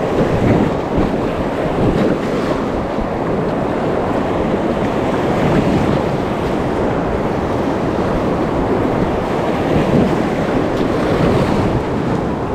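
Whitewater of a Class 1–2 river rapid rushing and splashing around an inflatable kayak, with wind buffeting the microphone.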